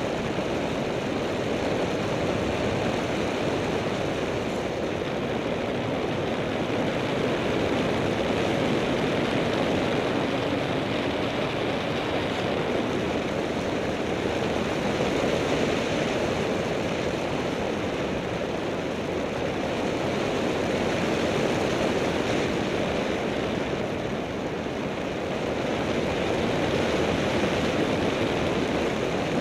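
Steady rush of wind mixed with the engine and propeller drone of a small light aircraft in flight, heard from the exposed airframe.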